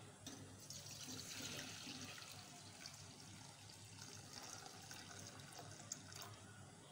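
Faint, steady sound of milk being poured in a stream into a stainless steel pan.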